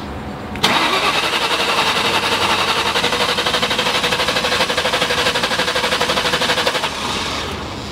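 2003 Mustang SVT Cobra's supercharged 4.6-litre V8 cranking on the starter motor in an even rhythm for about six seconds without catching, then stopping. It is a no-start that a new fuel rail pressure sensor has not cured.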